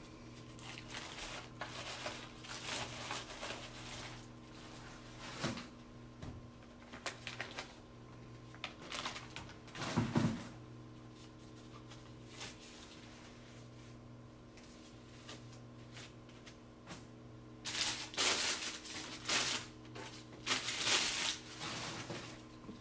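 Plastic and paper drapes and packaging crinkling and rustling in short bunches as used catheter-kit supplies are gathered up and thrown away; the loudest run of rustling comes near the end. A steady low electrical hum runs underneath.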